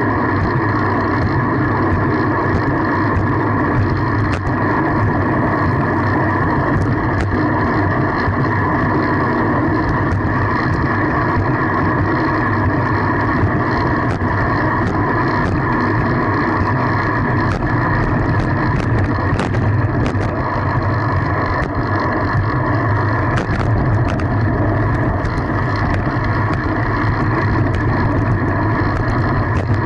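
Steady rolling and wind noise of a fixed-gear bicycle being ridden, with scattered light clicks and rattles throughout.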